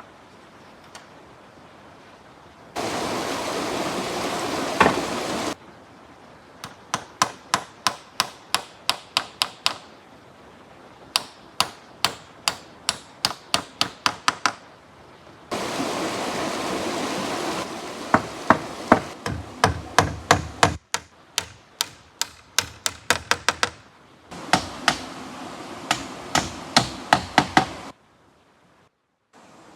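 Repeated sharp blows of a tool striking wood, about three a second, in several runs. Between the runs come stretches of steady rushing noise that start and stop abruptly.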